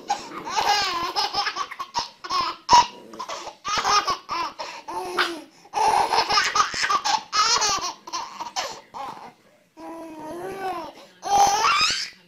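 A baby laughing hard in a long string of bursts with short breaths between them, ending in a rising squeal near the end.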